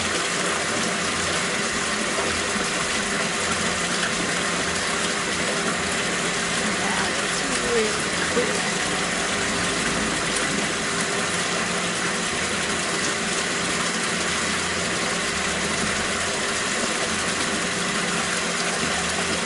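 Aquaponics system running: a steady rush of moving water over a low electric pump hum.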